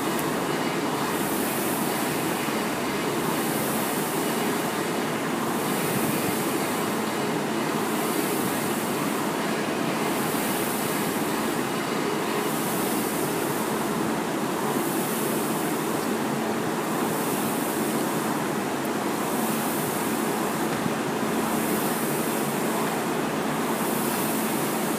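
Rowing machine's fan flywheel whooshing with each stroke in an even rhythm during steady rowing.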